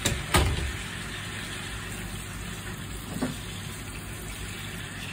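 Choi sum sizzling as it stir-fries in a stainless steel pan. Two sharp knocks come near the start and another about three seconds in.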